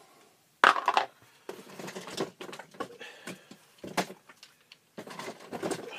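Plastic toys being handled and set down on a tabletop. There is a sharp knock about half a second in, then scattered clicks and rustling, busier near the end.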